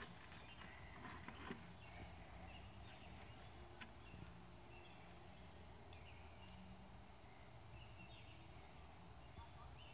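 Near silence: quiet evening outdoor ambience with a faint, steady high-pitched drone and a few faint ticks.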